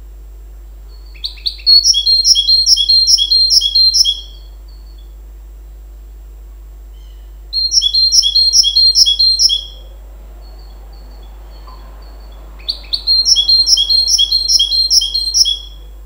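Goldfinch × canary hybrid (mule) singing three phrases with pauses between them. Each phrase is a quick, even trill of the same repeated note group lasting two to three seconds. The first and last phrases open with a couple of short sharp notes.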